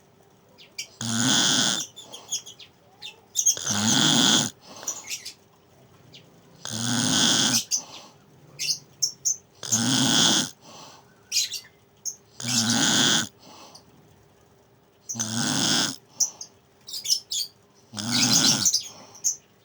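Snoring in a steady rhythm, one loud snore about every three seconds, seven in all, with a faint steady hum underneath.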